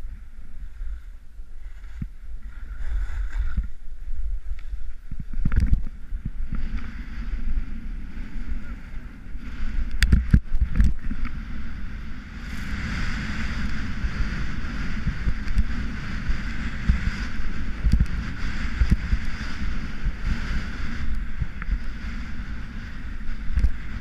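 Salomon Rocker II skis hissing and scraping over groomed snow during a fast descent, with wind buffeting the microphone. There are a few sharp knocks about five and ten seconds in, and the scraping grows stronger in the second half.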